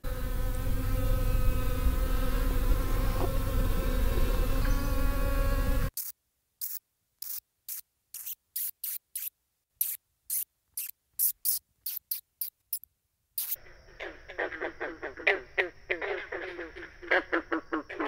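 A loud steady buzzing drone with a low hum for about six seconds, then little brown bat squeaks heard as a run of short, sharp, irregular clicks with silence between. About four seconds before the end, green frog calls ('gunk') begin, a fast pulsing run over a steady high insect tone.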